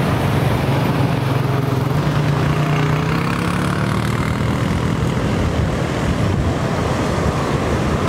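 Two ATV engines running steadily as the quad bikes drive past on sand, fading after about four seconds as they pull away. The hum gives way to a steady rush of wind and surf.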